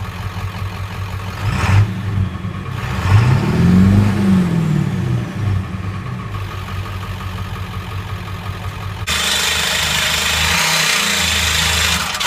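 1994 Ford F-350's 7.3 L PowerStroke turbo-diesel V8 running through its stock exhaust, revved up once a few seconds in and let fall back to idle. For the last few seconds a loud rushing hiss lies over the engine.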